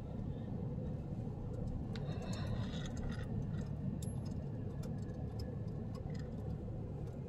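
Steady low road and engine noise heard inside a slowly moving car's cabin, with a few faint, irregular clicks.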